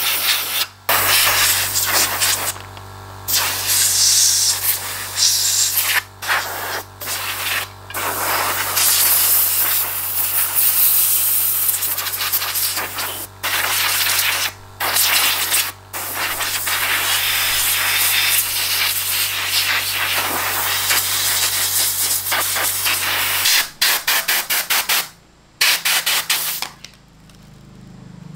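Pressurised air spray hissing in repeated bursts of one to a few seconds with short gaps between them, over a steady low hum. The hum stops near the end, and the last bursts come short and quick.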